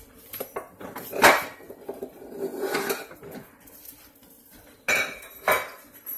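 Kitchen-counter clatter of seasoning containers and hands on a stone countertop while a fish fillet is seasoned: a sharp knock about a second in, a spell of rustling and tapping, then two more sharp knocks near the end.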